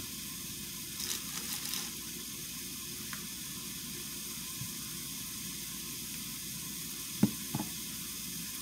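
Hamburger patties sizzling steadily in a frying pan. A brief plastic-bag crinkle comes about a second in, and two sharp knocks come near the end.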